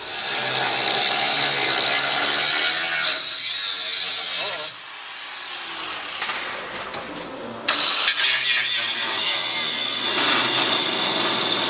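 Handheld angle grinder with a thin cut-off disc cutting into the rusty steel of a 1937 Lincoln Zephyr's front structure. The cutting noise eases off for about three seconds in the middle, then bites in loudly again.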